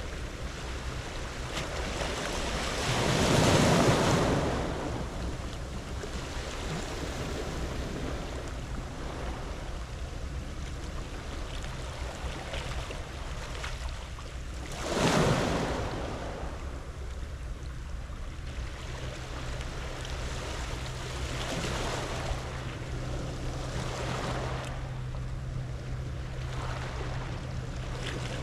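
Sea waves washing onto a pebble beach, a steady wash with two bigger waves surging in, one about three seconds in and one about fifteen seconds in.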